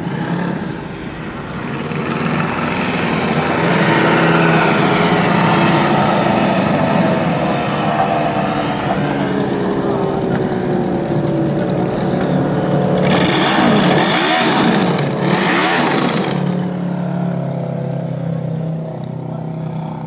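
Racing lawn mower engines running and revving, their pitch rising and falling, with more than one engine heard at once. The sound swells from about two seconds in, and a loud rush of noise comes between about 13 and 16 seconds, as a mower passes close.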